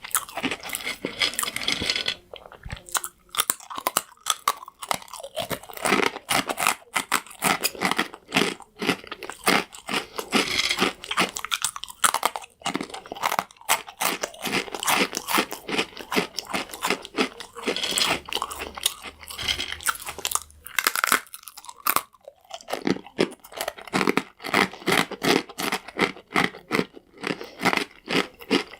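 Close-miked chewing of crunchy croutons: rapid, sharp crunches with short pauses between bites.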